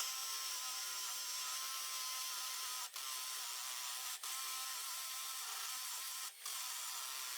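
Cordless brushless hammer drill (Milwaukee M18 Fuel Gen 3) running steadily in hammer mode, drilling into brick with a masonry bit. The sound breaks off briefly three times.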